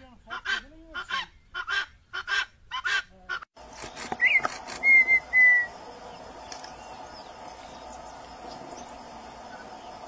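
Helmeted guineafowl calling a harsh, rhythmic cackle, about six calls a little under two a second, which cuts off abruptly about three and a half seconds in. Then a red-winged tinamou gives clear whistles, one rising and then two level ones, over a steady background hiss.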